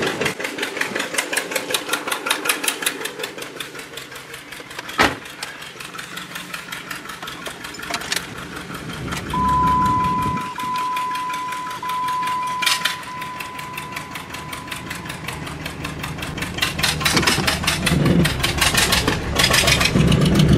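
John Deere two-cylinder tractor engine running with a fast, even putting beat. A steady electronic tone sounds for several seconds in the middle, and a few sharp clicks come through.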